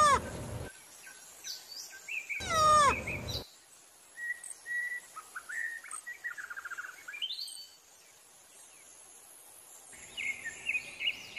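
Two loud bursts of squeaky calls about two and a half seconds apart, each a quick run of falling chirps. Then come scattered bird chirps and short trills, a quiet stretch, and more bird chirping near the end.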